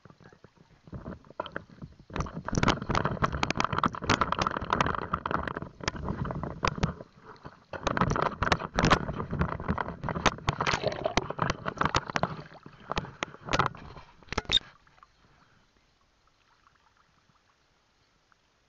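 Rustling and crackling of someone pushing through low brush close to the microphone, with many sharp snaps. It pauses briefly about six seconds in and stops about fifteen seconds in.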